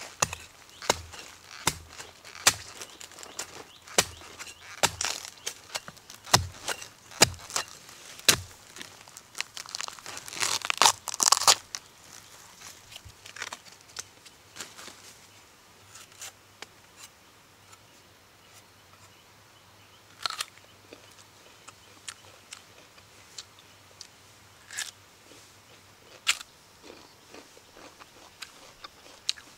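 A hoe chopping into forest soil about once a second for the first eight seconds, digging out a bamboo shoot. Then a burst of crackling and tearing, followed by scattered snaps and rips as the husk is peeled off the fresh bamboo shoot by hand.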